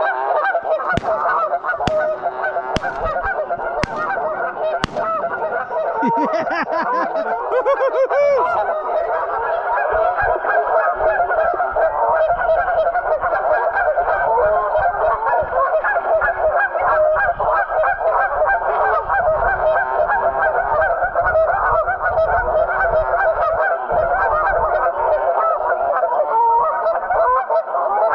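A flock of geese honking: many overlapping calls in a dense, unbroken chorus. A few sharp clicks come in the first five seconds.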